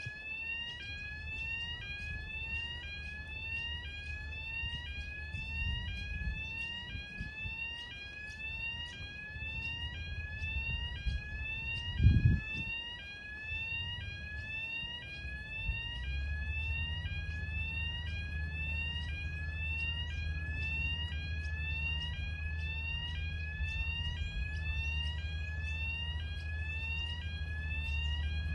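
Electronic alarm sounding a short rising tone over and over at an even pace, over a low rumble. A loud thump comes about twelve seconds in, and a steady low hum sets in a few seconds later.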